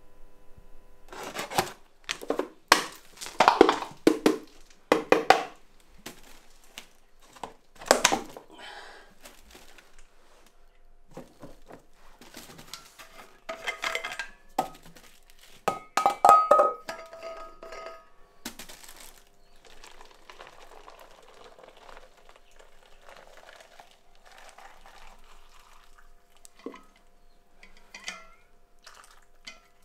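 Dishes and metal pots clattering and clinking as they are handled, in irregular bursts of knocks. The knocks are heaviest in the first half and lighter later.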